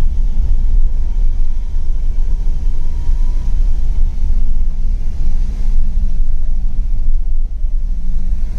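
Steady low rumble of a car in motion, with a faint engine hum underneath.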